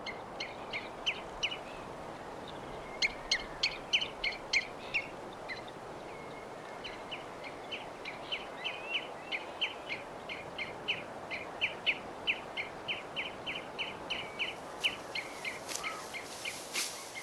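Birds chirping in a long run of short, repeated calls, two to three a second, over a steady hiss of outdoor ambience. A few sharp clicks come near the end.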